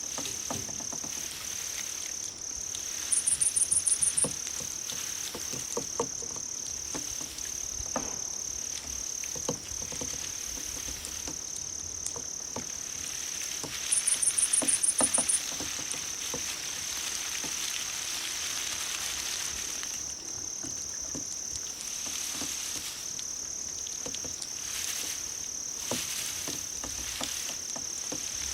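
Grass insects such as crickets chirping: a steady, high trill with brief regular breaks. Twice, a louder and higher chirp of about ten rapid pulses lasts about a second, first about three seconds in and again about fourteen seconds in.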